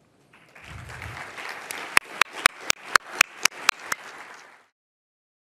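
Audience applauding, with a run of sharp, loud claps about four a second standing out over the rest. The applause cuts off suddenly about a second before the end.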